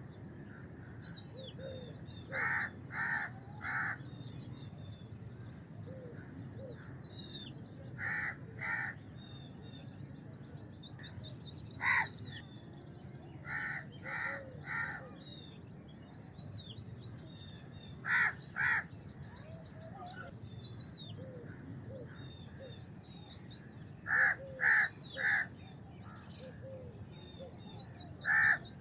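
House crow cawing in short runs of one to three caws every few seconds, over the continuous high chirping of small birds and a steady low background noise.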